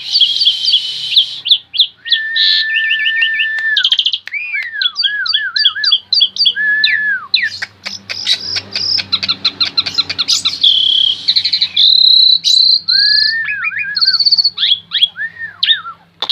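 Asian pied starling (jalak suren) singing vigorously: a loud, varied run of clear whistles, looping rising-and-falling notes, repeated sharp chirps and fast rattling chatter.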